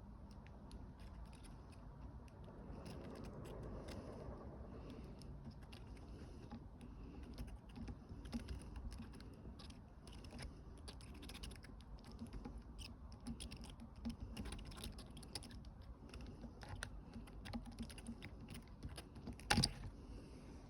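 Faint, scattered light clicks and taps of hand tools and small parts being handled while the DSG transmission's pressure sensor is unsoldered from the TCM plate, with one louder click near the end.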